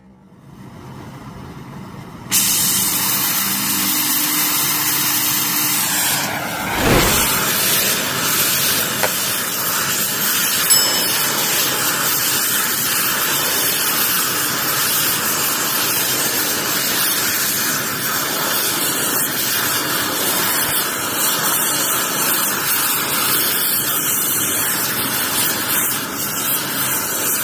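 Gas torch flame hissing steadily as it heats metal for bending, starting suddenly about two seconds in, with a brief falling tone a few seconds later.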